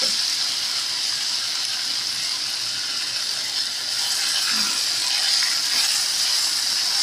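Diced chicken breast sizzling in olive oil in a stainless steel skillet, a steady high hiss as the pieces brown.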